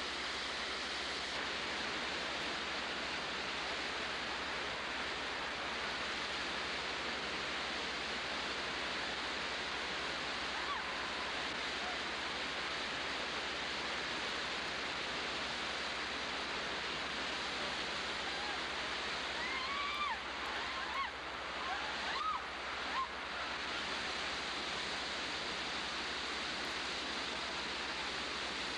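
River rapids rushing steadily. A few short yells from people cut through about twenty seconds in.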